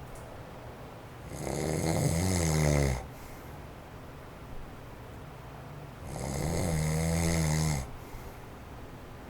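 A man snoring in his sleep: two long snores about four and a half seconds apart. An electric fan on its low setting whirs faintly and steadily underneath.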